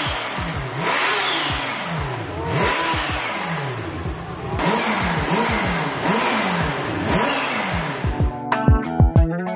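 Kawasaki Ninja H2 Carbon's supercharged inline-four engine being revved in repeated throttle blips, its pitch rising and falling about once every 0.7 s, over background music. Near the end the revving gives way to music with a strong beat.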